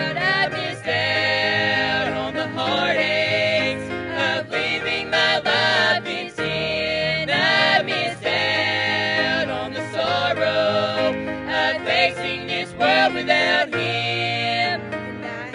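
A vocal trio singing a gospel song together, with an electric bass playing along underneath.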